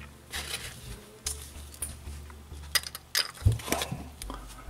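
Handling noise from steel revolvers being picked up and moved on a carpeted table: scattered light clicks and knocks, most of them about three seconds in, over a low steady hum.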